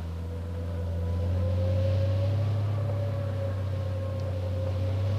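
Cargo truck's engine running steadily as the truck drives along a sandy track, with a low drone that grows louder during the first couple of seconds.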